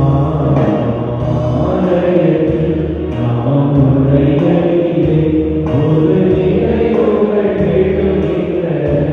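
Voices singing a chant-like hymn in long held notes.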